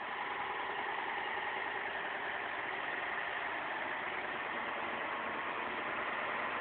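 Heavy-haul truck's diesel engine running steadily at low speed as the tractor unit manoeuvres.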